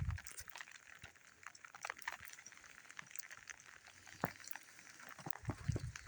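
Faint, irregular crackling ticks, with low muffled rumbles near the start and again near the end.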